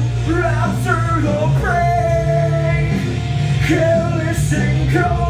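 Male rock vocal sung into a microphone over a hard-rock band backing, with a dense, steady wall of sound underneath the voice.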